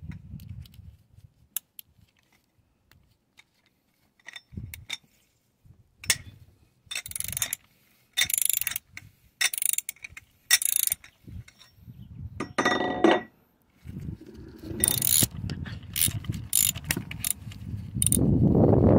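Socket ratchet wrench clicking in short bursts of strokes while a tight spark plug is worked loose on a 2007 Mercury 115 hp outboard. A steady rushing noise comes in near the end.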